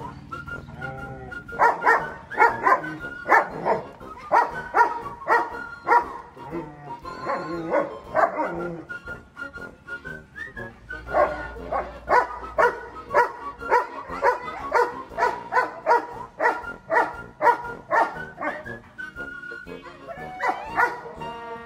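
An 11-month-old German Shepherd barks repeatedly in quick runs of sharp barks, with a high whine held between some of the runs.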